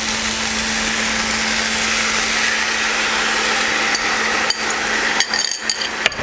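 Noodles and vegetables sizzling steadily in a hot wok as stir-fry sauce is poured in. From about four seconds in, a spoon taps and scrapes against a glass bowl several times.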